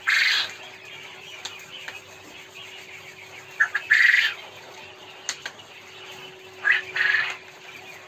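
Quail calling three times, harsh buzzy calls about three seconds apart, the later two each a short note followed by a longer one, over a faint steady hum.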